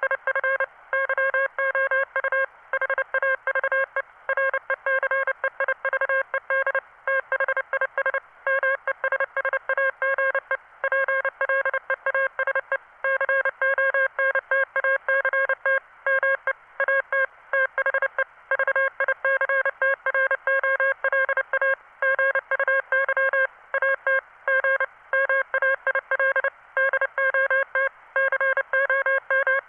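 Morse code message from a text-to-Morse converter: one steady-pitched tone keyed on and off in a fast, continuous run of dots and dashes with short gaps between characters.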